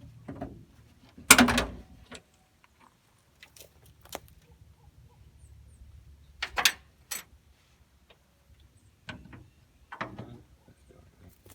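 Scattered clunks, knocks and rattles of metal truck hardware being opened and handled to get at the batteries, loudest about a second in and again around six and a half seconds.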